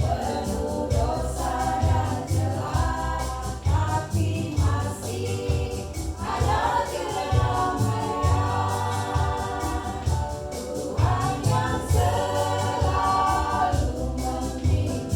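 Choir singing a gospel worship song, with a band accompaniment of bass and drums keeping a steady beat.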